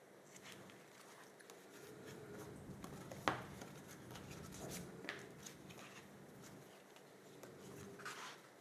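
Faint handling of cardstock and paper: rubbing and rustling with a few light taps and clicks, the sharpest about three seconds in.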